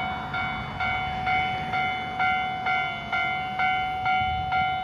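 Railway level-crossing warning bell ringing in a steady repeating strike, about two strikes a second, over a held tone: the signal that a train is approaching.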